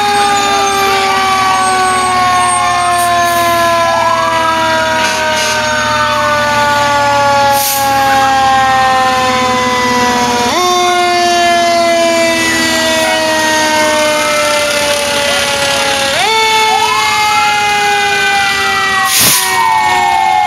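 Fire engine sirens sounding as the trucks pass. One siren jumps up in pitch about every six seconds and then slides slowly down, while fainter sirens rise and fall behind it.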